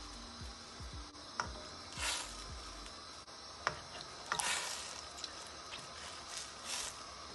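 Chicken pieces being lowered and turned with a plastic spatula in simmering pomegranate sauce in a steel pot: wet squishing and a few splashy swishes, with light clicks of the spatula against the pot.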